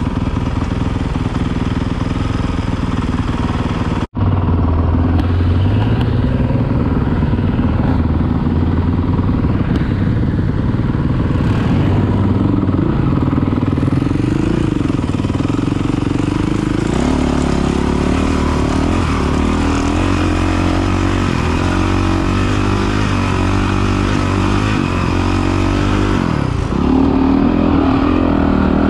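Honda CRF dirt bike's four-stroke single-cylinder engine running while being ridden, its pitch rising and falling with the throttle. The sound cuts out for an instant about four seconds in.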